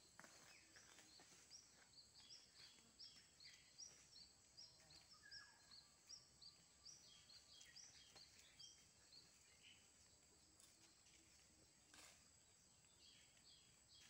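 Faint birdsong: short high chirps repeated about three times a second, pausing for a few seconds and starting again near the end, over a steady high-pitched whine.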